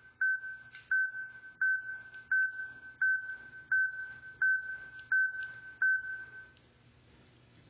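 Evenly spaced electronic beeps of one high pitch, nine in a row about 0.7 s apart, each cue marking the next number flashed on a flash-anzan display. The beeps stop about six and a half seconds in.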